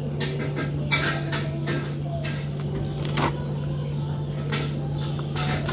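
Handling noise at a stainless-steel sink: a few sharp knocks and clicks, spread out, as yellow rubber dishwashing gloves are pulled off, over a steady low hum.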